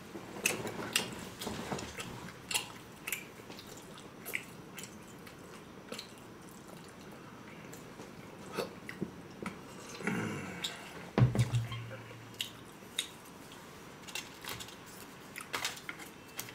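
Eating sounds at a table: chewing and scattered clicks of forks and chopsticks against plates. One louder, lower sound comes about eleven seconds in.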